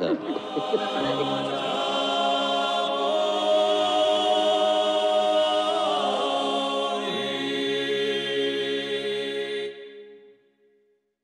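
Choral music: a choir singing held chords that shift a few times, then fading quickly away to silence near the end.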